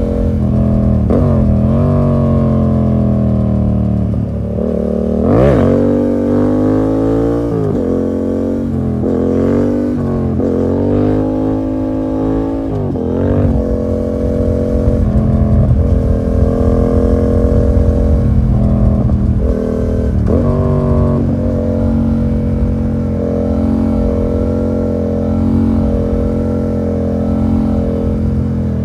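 Yamaha MT-07's parallel-twin engine through an SC Project full exhaust with the dB killer removed, ridden hard: the revs swing up and down repeatedly with abrupt breaks in the first half. For the rest, it runs at fairly steady revs with small throttle changes.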